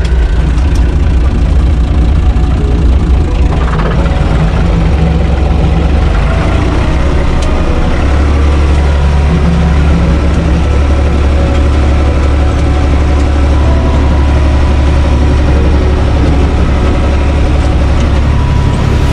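UTB 445 tractor's four-cylinder diesel engine running steadily, heard from inside the cab. Its low note grows stronger about eight seconds in.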